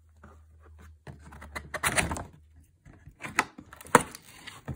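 Cardboard box being opened by hand: flaps pulled and folded back with cardboard scraping and rustling, and a few sharp knocks, the loudest about four seconds in.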